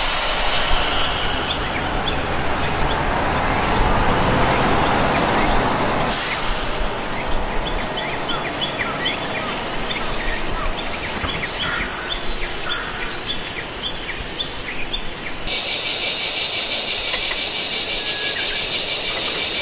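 Outdoor nature ambience. A steady low noise for about the first six seconds gives way to small birds chirping, and a rapid, evenly pulsing insect trill comes in about three-quarters of the way through.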